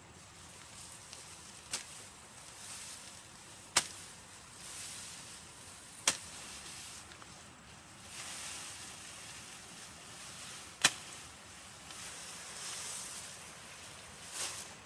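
Machete chopping through tall grass stalks: about five sharp swishing cuts at irregular intervals, with the grass rustling between them.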